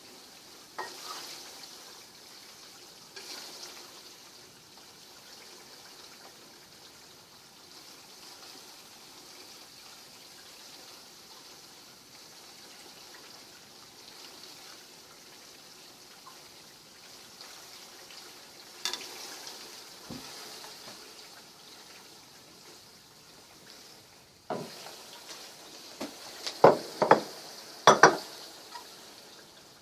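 Pork leaf fat rendering in a pot, the melting lard sizzling and bubbling steadily. A few clicks come through it, then several knocks near the end, which are the loudest sounds.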